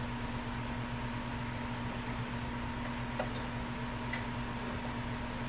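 Steady room tone: a low electrical hum with a faint higher tone over even hiss, broken by a few faint clicks between about three and four seconds in.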